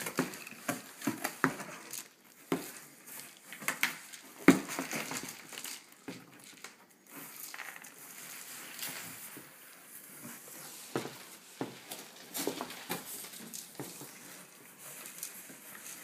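A potbelly pig nosing and shoving a cardboard box across carpet: irregular knocks, scrapes and rustles of the cardboard, loudest about four and a half seconds in.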